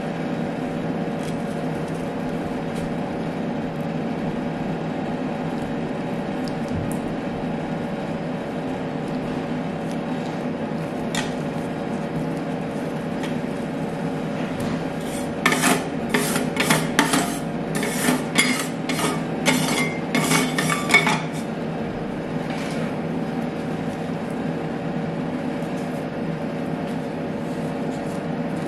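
Steady hum of an ice cream roll machine's refrigeration unit running. About halfway through, a run of sharp metallic clinks and scrapes lasts for several seconds.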